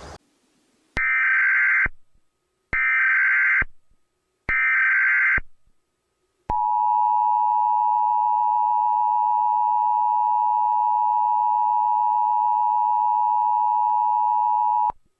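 Emergency Alert System header: three bursts of screeching digital data tones, each a little under a second long, then the two-tone attention signal, a steady dual tone of about 853 and 960 Hz held for about eight and a half seconds before cutting off.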